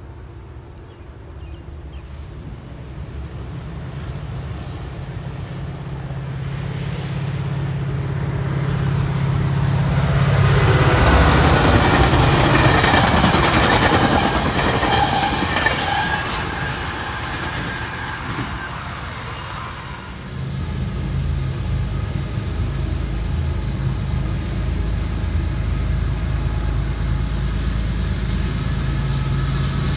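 A train passing: the low drone of a diesel locomotive's engine grows louder over the first ten seconds. It peaks for several seconds with wheel noise and some high squeal from the rails, then eases off. A little after the middle a steady low engine rumble comes in and holds.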